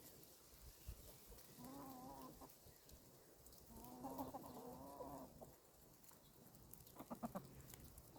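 Hens clucking: two drawn-out, wavering calls, then a few quick short clucks near the end.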